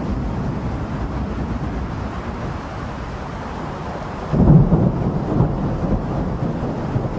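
Thunder rumbling low and fading away, then a fresh, louder peal of thunder breaking about four seconds in and rolling on in swells.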